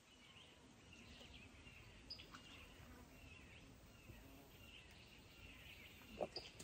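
Faint swampside woodland ambience: distant birds chirping over a low background hiss, with a couple of soft knocks near the end.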